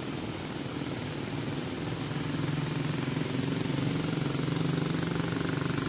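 Motorcycle engine running on the road, growing louder from about two seconds in as it approaches, over a steady hum of street noise.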